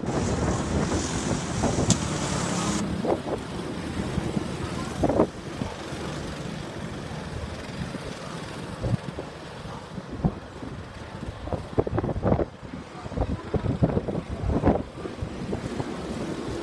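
Go-kart engines running as karts drive round the circuit, with wind buffeting the microphone in gusts.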